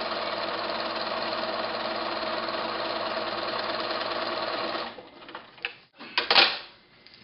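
Home sewing machine running steadily as it stitches along a seam line through foundation paper and fabric, then stopping about five seconds in. A few clicks follow, with a sharp clack near the end.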